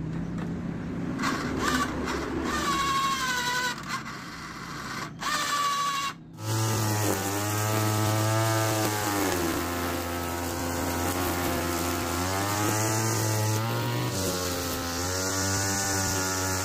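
Small two-stroke engine from a TU26 sprayer running on a homemade remote-controlled mower, its speed rising and falling over and over. In the first few seconds, before a sudden break, a whine glides up and down.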